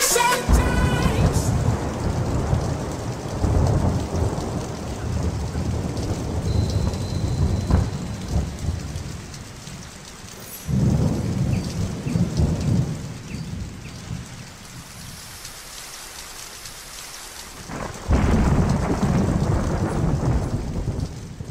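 Rain falling during a thunderstorm, with rolling thunder: a long, deep rumble that fades over about ten seconds, a second shorter rumble soon after, and a third starting near the end.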